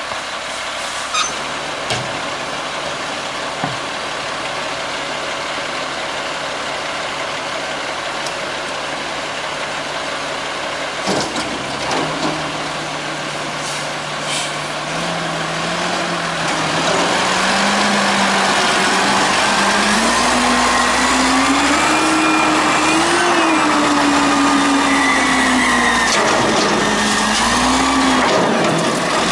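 Diesel garbage truck idling, with a few knocks as cans are banged into the front hopper. From about halfway the engine revs up and runs louder, its pitch rising and wavering as it powers the hydraulic lift.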